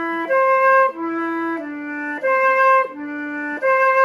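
Concert flute played slowly in its low register, a repeated higher note alternating with low notes that step down from E to D. This is a slurred practice pattern for getting the low notes to speak cleanly, each note held a little over half a second.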